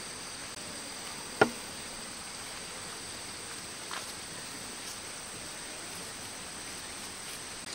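Steady high-pitched chirring of insects, with one sharp click about a second and a half in and a fainter one a few seconds later.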